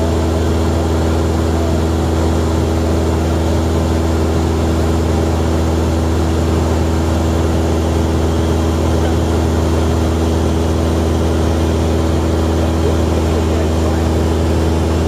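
Light propeller airplane's engine running steadily in flight, heard from inside the cabin: a constant, unchanging drone with several low hums in it.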